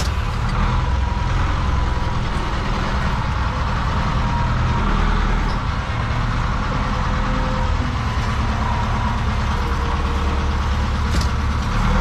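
Zetor 7245 tractor's four-cylinder diesel engine running steadily, heard from inside the cab.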